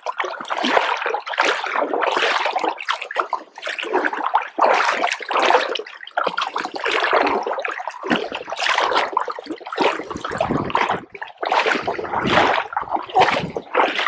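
Water splashing and sloshing in irregular surges, about one or two a second.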